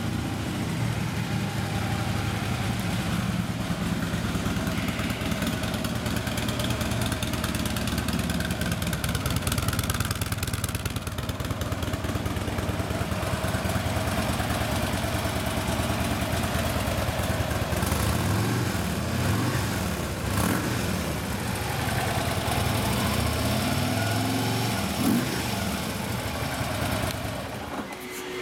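A 2014 Harley-Davidson Ultra Classic's 103-cubic-inch fuel-injected Twin Cam V-twin idling steadily after starting. In the second half its pitch rises and falls several times as the throttle is blipped.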